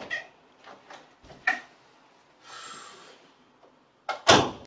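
An interior door being handled: a few light clicks and taps, a soft rush, then a loud sharp knock near the end as the door shuts.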